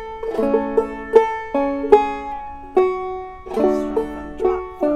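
Five-string banjo in gDGBD tuning, capoed at the second fret, played clawhammer style: a short phrase of plucked single notes and brush strums, each note struck sharply and ringing out, about two notes a second.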